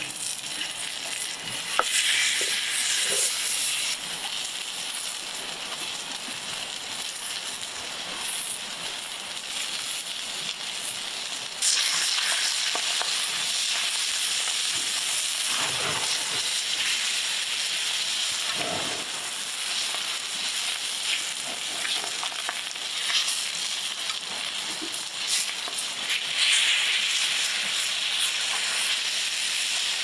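T-bone steak sizzling in hot oil in a cast-iron pan over a wood fire, a steady high frying hiss with scattered pops. The sizzle jumps suddenly louder about twelve seconds in and stays loud.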